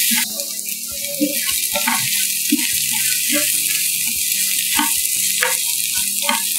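Tempering of grated carrot, curry leaves, cashews and dals sizzling in hot butter and oil in a non-stick pan. A wooden spatula stirs it, with scattered knocks and scrapes against the pan.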